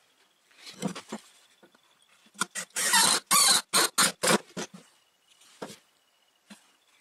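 A glued wooden dowel being worked into a tight hole in a pine board: wood rubbing against wood in a quick run of about ten short rasping strokes, starting about two and a half seconds in, after a few softer rubs.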